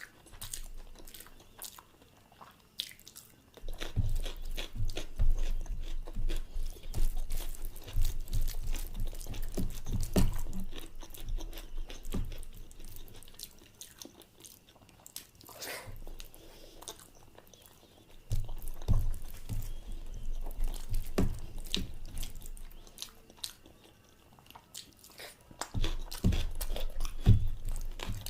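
Close-miked chewing and mouth sounds of someone eating a meal: three bouts of dull, rhythmic chewing with small wet clicks, separated by quieter pauses.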